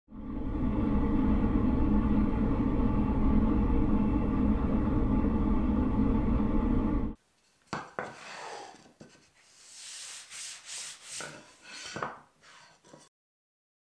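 Shop vacuum running steadily as its hose sucks up sawdust from a plywood board, stopping abruptly about seven seconds in. After it, light scraping, rubbing and knocking of small wood pieces being slid across a table saw's top.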